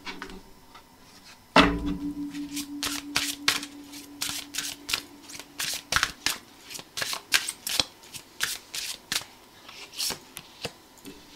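Tarot cards being shuffled by hand: a long run of irregular quick taps and slaps of the cards. Near the start a sharp knock sets off a low ringing tone that lasts a few seconds.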